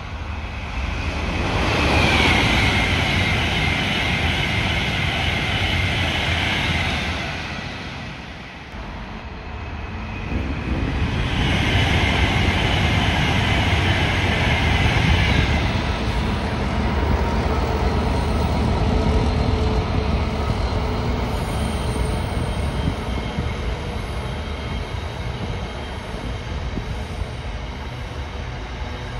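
A train running on the tracks: a steady low rumble, with two swells of a higher hiss, the first lasting about six seconds and the second beginning about eleven seconds in.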